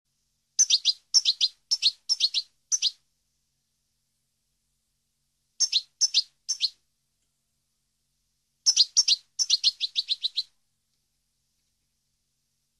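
European goldfinch singing: three short bursts of quick, high twittering notes, the first about two seconds long, then a shorter one, then a quicker run near the end, with pauses between.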